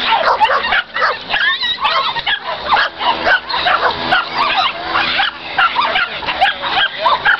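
Several pit bull-type dogs barking and yelping at once, a dense run of short high calls that keeps going without a break.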